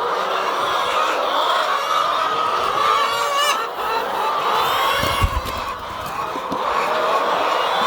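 A house of laying hens clucking and calling all together in a dense, continuous chatter. There is a dull knock about five seconds in.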